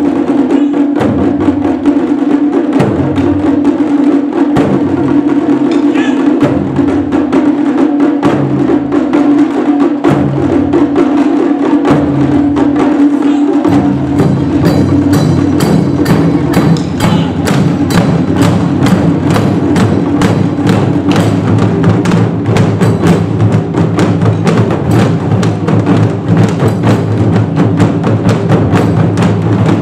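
Japanese taiko drum ensemble playing a fast, driving rhythm on many drums at once, with sharp, clicking high strokes over deep drum beats. About fourteen seconds in, the deep drums join in more densely.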